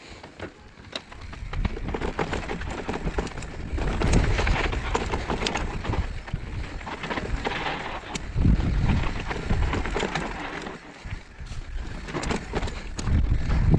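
Mountain bike riding down a dirt downhill trail: tyres rolling over the ground, and the bike rattling with frequent clicks and knocks. Wind buffets the microphone in low rumbling gusts. The noise grows louder over the first few seconds as speed picks up.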